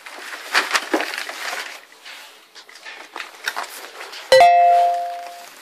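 Rustling and crinkling of packaging being handled, then, about four seconds in, a single sharp metallic clink that rings on for about a second.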